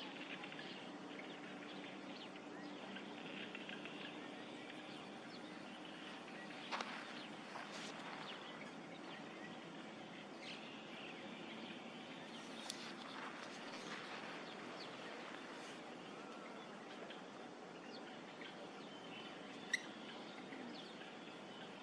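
Faint outdoor background noise with a steady low hum and occasional short bird chirps. A few brief sharp clicks or chirps stand out, the loudest near the end.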